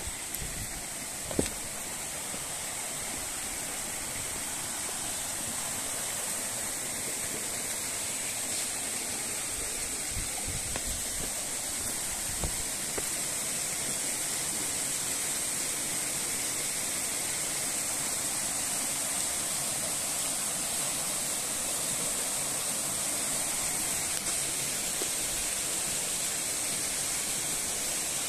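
Stream water rushing among boulders: a steady hiss that grows slowly louder, with a sharp knock about a second in and a few fainter knocks later.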